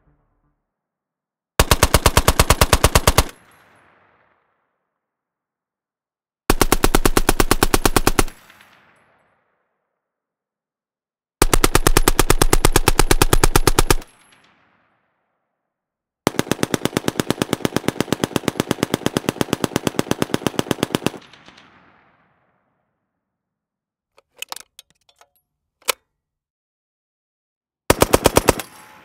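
Vickers .303 British water-cooled machine gun firing five bursts of rapid automatic fire, each cut off after one to five seconds, the fourth the longest; each burst trails off in a short echo. A few quieter clicks come in the pause near the end.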